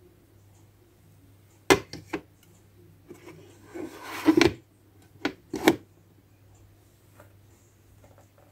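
Hard plastic clicks and clacks from a toy kitchen's plastic oven door being opened and shut: three quick clicks, then a scrape about four seconds in that ends in loud clacks, and two more clacks soon after.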